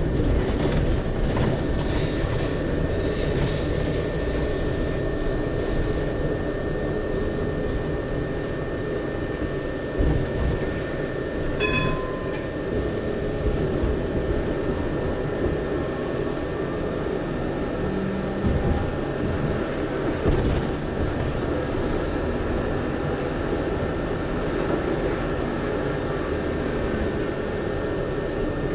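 Inside an HTM GTL8 articulated tram on the move: a steady rumble of wheels on rail with a thin, steady high whine, a few single knocks, and a short beep about twelve seconds in.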